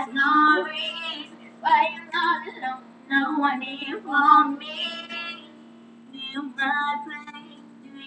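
Young girls singing a song, phrase after phrase with short pauses between lines.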